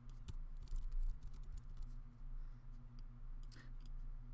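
Scattered keystrokes and clicks on a computer keyboard and mouse, a few irregular taps, over a faint steady low hum.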